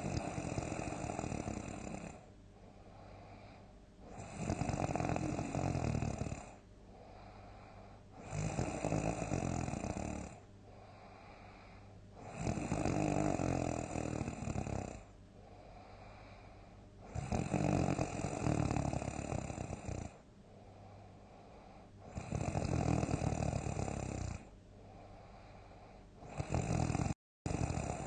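A person snoring loudly in deep sleep: seven long snores, one about every four seconds, each lasting around two seconds, with quieter breathing between them.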